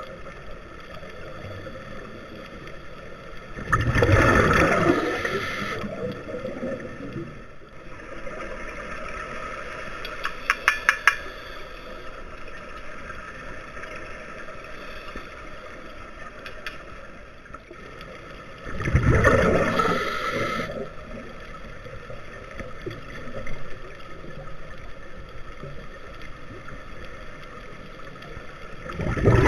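Scuba diver's regulator underwater: exhaled bubbles rush out in three bursts of about two seconds each, roughly fifteen seconds apart, with a steady hiss between them. A quick run of small clicks comes about ten seconds in.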